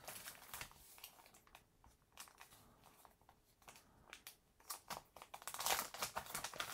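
Paper and card rustling, with small clicks and taps as craft supplies are handled on a cutting mat. The rustling is loudest for about a second, around five and a half seconds in.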